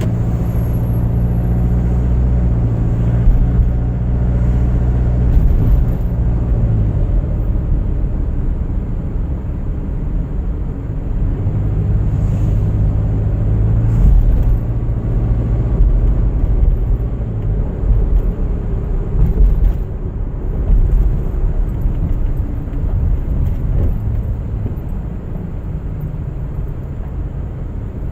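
Car driving on a winter road: a steady low rumble of tyres and engine, with an engine hum that fades out about six seconds in and returns for a few seconds near the middle.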